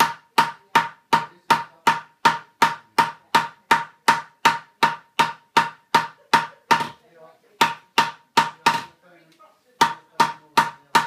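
Hammer blows on a silver sheet being blocked up into a rounded milk-can panel on a tree-trunk block, about three strikes a second, each with a short ringing note. The hammering pauses briefly twice, about seven and nine seconds in.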